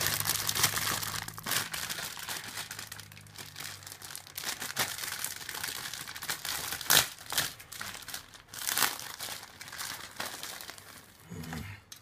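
Thin clear plastic bags crinkling and crackling as model-kit parts runners are handled in them, with irregular sharp crackles throughout.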